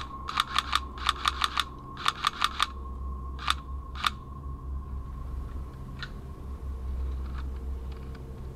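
Airsoft guns firing three quick bursts of about five shots each, then a few single shots, during a skirmish in the woods.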